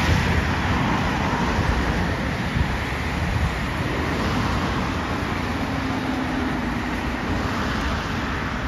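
Steady road-traffic noise from cars passing on a dual carriageway, mainly tyre and engine noise.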